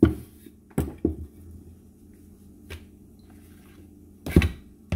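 A wooden rolling pin knocking and tapping on a stone counter as flour tortilla dough is rolled out, with the loudest double knock a little over four seconds in. A faint steady low hum runs underneath.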